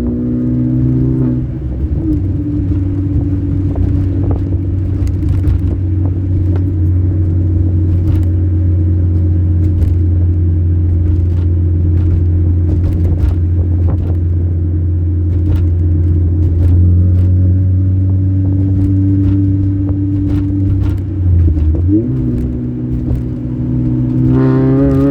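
Supercharged 2004 Mini Cooper S four-cylinder engine pulling under acceleration, then holding a steady drone at cruise for most of the stretch. About three-quarters of the way through the revs dip briefly, as at a gear change, then climb again near the end. Light clicks and rattles sound now and then over the drone.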